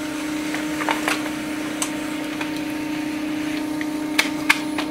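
Samsung ML-1210 laser printer running a test print: a steady motor hum with scattered short clicks from its mechanism. The test print shows the reassembled printer working properly.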